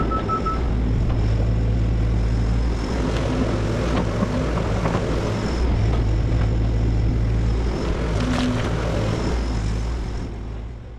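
XCMG crawler excavator's diesel engine running steadily with a low drone under load, with a few faint knocks of the machine working. It fades out just before the end.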